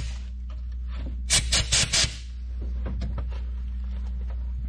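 Compressed-air blow gun giving four quick blasts about a second in, blowing out head-bolt holes in an engine block, over a steady low hum.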